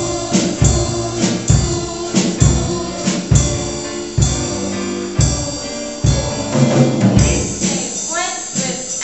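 Music with a steady drum beat, about one strike a second, under sustained pitched instrument tones.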